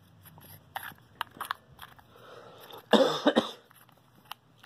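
A short, loud cough about three seconds in, over light clicks and scrapes of metal flashlight parts being handled and threaded together.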